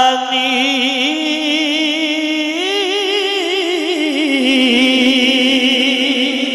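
A man's voice singing one long, wavering held note of Punjabi devotional verse, without words. The pitch climbs a little past halfway and then sinks back to the starting note.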